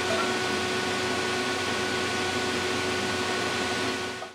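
Steady whooshing noise of a running fan, with a few faint steady tones in it; it cuts off suddenly at the end.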